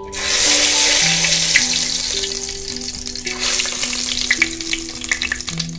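Cumin seeds and garam masala hitting hot refined oil in a pot: an abrupt, loud sizzle the moment they go in, hissing on with scattered crackling pops, easing off just before the end.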